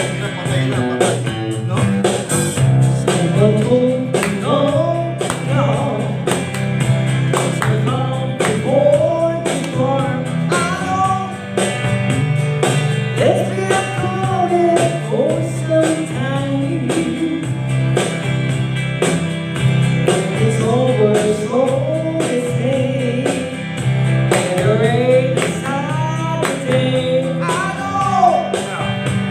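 A country-rock song with guitar, a steady low bass line and a melody that bends up and down in pitch.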